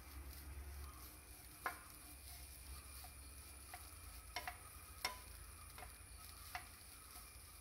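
Wooden spatula stirring grated coconut as it roasts in a nonstick frying pan: a faint scraping with several light, scattered taps of the spatula against the pan.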